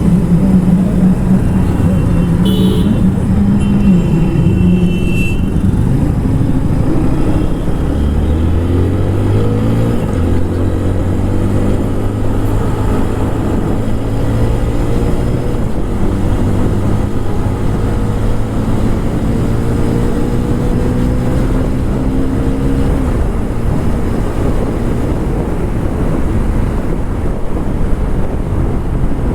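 TVS Apache RTR 160 4V's single-cylinder engine in its stock exhaust, running while being ridden, its note climbing in pitch as it pulls through the revs.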